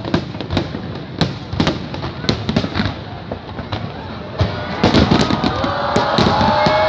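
Fireworks exploding in a rapid, irregular series of sharp bangs and crackles. The barrage grows denser and louder about five seconds in.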